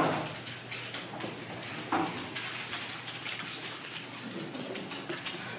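Scattered clicks and light taps of computer keyboards and mice, with two louder knocks, one at the start and one about two seconds in.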